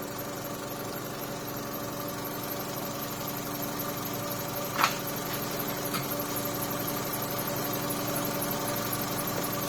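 2014 Holden Cruze engine idling steadily, with a short click about five seconds in.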